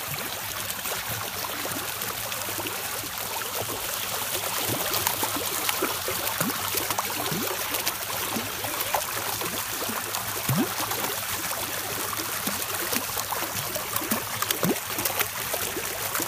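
Water splashing and churning in a shallow concrete basin as a toddler kicks her bare feet in it, with many small bubbly plops throughout.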